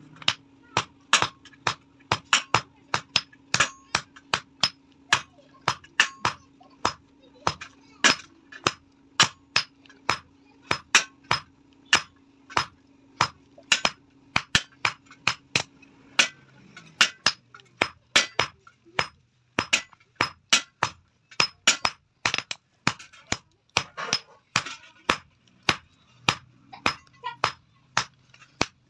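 Blacksmith's hand hammer striking a red-hot iron bar on an anvil, a steady run of sharp metallic blows at about two a second.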